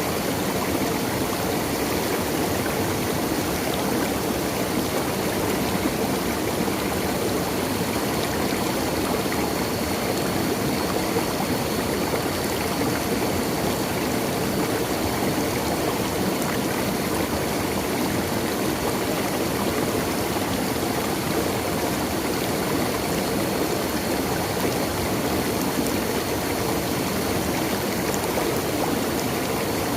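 Water of a stream flowing steadily, an even rushing sound that does not change.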